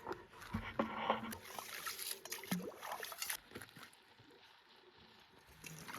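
Water sloshing and trickling in a freshly drilled hole in thin lake ice, with scattered light knocks.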